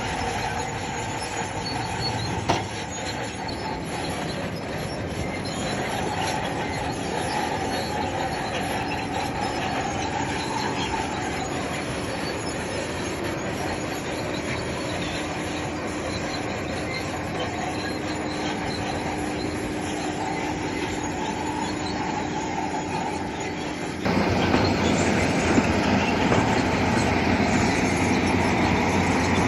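Crawler bulldozer working, its engine running under the squeal and clank of its steel tracks. About three-quarters of the way through the sound jumps abruptly louder.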